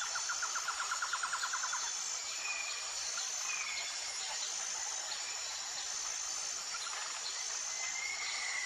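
Outdoor nature ambience: insects trilling, with a rapid pulsing trill of about ten pulses a second for the first couple of seconds, a steady thin high-pitched buzz throughout, and a few short bird chirps.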